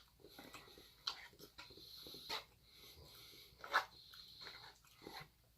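Faint wet chewing and lip-smacking, a string of short irregular clicks with a few louder smacks.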